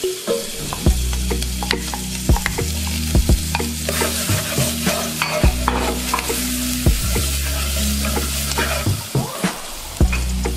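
Chopped garlic sizzling and frying in butter and spices in an aluminium pot, with a wooden spoon scraping and knocking against the pot as it is stirred, over a steady low hum.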